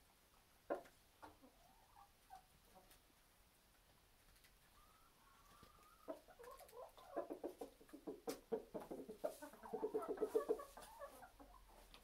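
Domestic chickens clucking: a few scattered calls at first, then from about six seconds in a fast, dense run of clucks that grows louder, peaks a little before the end and then dies away.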